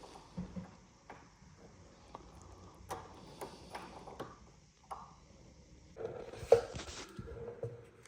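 Scattered small clicks and light knocks from hand work on the shifter's small parts, with a louder stretch of rubbing and scraping about six to seven and a half seconds in.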